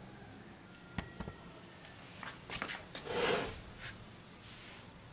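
Light workshop handling sounds: a few sharp clicks and a short rustling scrape a little past the middle, over a steady faint high whine.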